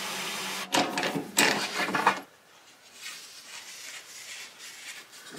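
Power tools running at a metal lathe fitted with a trim router, cutting threads on a wooden broom-handle dowel, with a cordless drill revving up and down in several short bursts. The tool noise stops about two seconds in, leaving only faint handling sounds.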